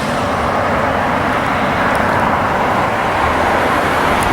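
Steady road traffic noise, an even rush with no pauses or distinct passes.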